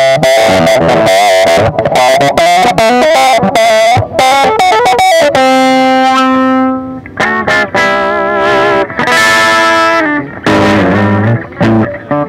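Electric guitar fitted with a Dialtone active pickup, played through an Orange Dual Terror valve amp with some overdrive: bluesy lead lines full of string bends and vibrato, with a long held note about halfway through.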